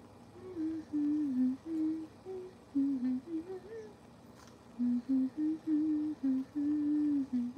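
A woman humming a wandering tune alone, in short held notes with a pause of about a second midway.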